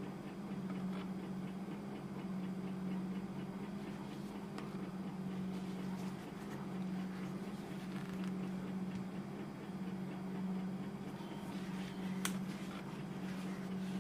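A steady low hum that swells and eases roughly once a second, with a few faint clicks and one sharper click near the end as the plastic gaming headset is turned over in the hands.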